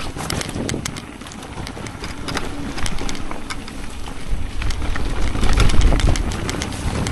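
Mountain bike riding down a rough dirt trail: tyres rolling and crunching over stones, with frequent sharp rattling clicks from the bike. A low rumble swells and is loudest about four to six seconds in.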